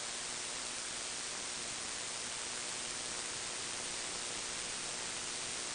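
Steady static hiss with a faint hum under it, unchanging throughout, with no music or voices.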